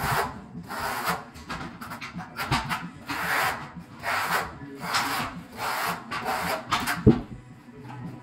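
A steel notched trowel scrapes thin-set mortar across a concrete floor in repeated short strokes, roughly one every half second or so. There is a sharp knock about seven seconds in.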